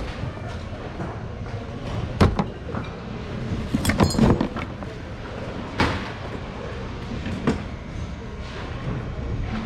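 Items being rummaged through in a thrift-outlet bin: a few scattered knocks and clatters, the loudest cluster about four seconds in, over a steady store background.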